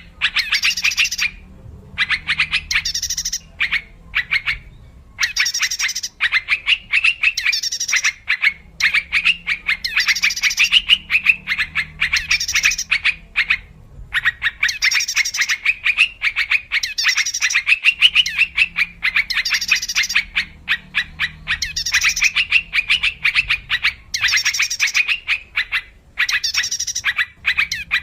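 Yellow-vented bulbuls (cucak trucuk) calling in quick, bubbly chattering phrases, one after another with short pauses between them: a bird-trapping lure recording.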